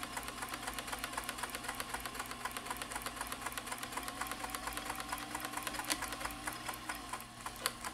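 Vintage Janome Combi DX 502 running on its serger/overlock side, stitching a rolled edge through two layers of heavy, felt-like fabric with a fast, even clatter that softens slightly near the end. The machine is straining at the thickness: two layers are more than it likes.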